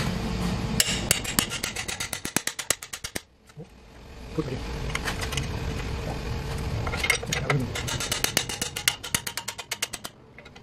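Ratcheting wrench clicking in quick, even runs as a suspension bolt is turned: one run from about a second in to three seconds, then another from about seven to ten seconds.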